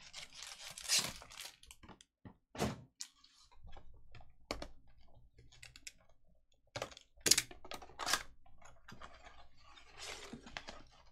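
Cardboard box of 2020 Bowman's Best trading cards being handled and opened by hand: irregular clicks and rustles of the flaps, with a few sharp cardboard snaps, the loudest about seven seconds in.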